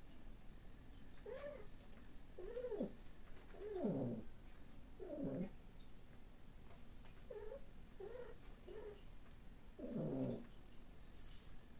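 Cats mating, one of them yowling in a series of about eight short, arching calls. Two louder, drawn-out yowls fall low in pitch about four seconds in and again near ten seconds.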